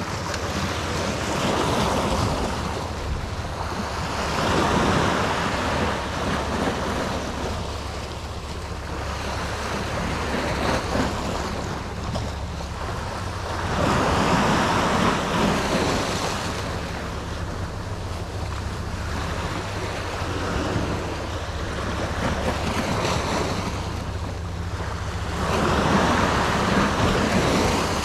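Sea waves surging and washing against the rocks at the foot of the cliff, rising and falling in several swells. A steady low wind rumble on the microphone runs underneath.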